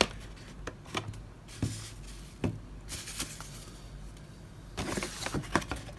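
Handling of an action-camera carry case and its packaging: scattered clicks and knocks, with two stretches of rustling, one early on and one near the end.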